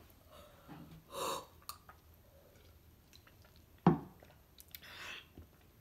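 A person chewing and blowing out hard breaths through the mouth against the burn of a just-bitten habanero pepper, one strong exhale about a second in and another near the end. A single sharp knock about four seconds in is the loudest sound.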